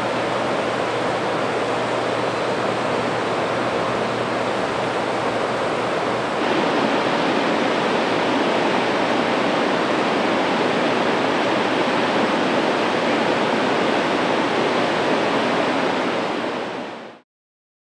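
Sorachi Great Falls, a waterfall on the Sorachi River, rushing with a loud, steady roar of falling water. It becomes a little louder about six and a half seconds in and fades out to silence near the end.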